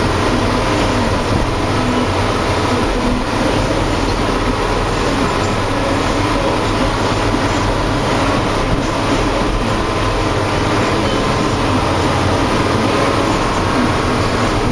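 Deutz tractor's diesel engine running steadily at road speed, heard close up from the bonnet, with a constant hiss of road and wind noise over the engine note.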